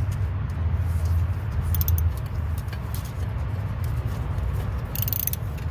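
Ratchet and socket clicking in two short runs, about two seconds in and again near the end, as a 13 mm bolt on the front shock's lower mount is worked loose, over a steady low rumble.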